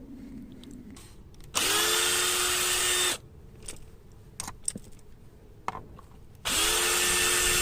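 Cordless drill-driver with a Torx bit backing out the screws of a tailgate lock housing: two runs of about a second and a half each, each spinning up quickly to a steady whine, with small clicks of handling between them.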